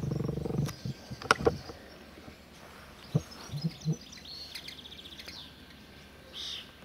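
Birds chirping with short high calls and a quick trill. Before them, a low, steady-pitched hum cuts off within the first second, and a few sharp clicks follow.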